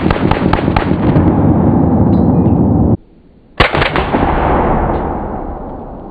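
Two loud explosive blasts. The first is already rumbling, with crackling snaps in its first second, and cuts off abruptly about three seconds in. A second sudden bang follows about half a second later and its rumble fades away over the next two seconds.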